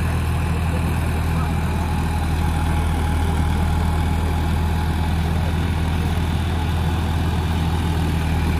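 John Deere 5050E tractor's three-cylinder diesel engine running steadily under load while it drives an 8-foot Landforce rotavator, tilling hard, dry ground at high rotor speed.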